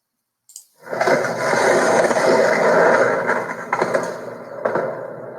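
Skateboard wheels rolling over pavement, a steady loud rolling noise with a few sharp clacks.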